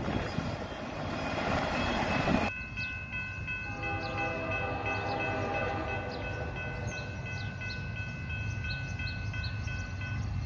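Rumbling noise of a freight train rolling by for the first couple of seconds. After a cut, a distant locomotive horn sounds one long, steady chord for about seven seconds, with birds chirping over it.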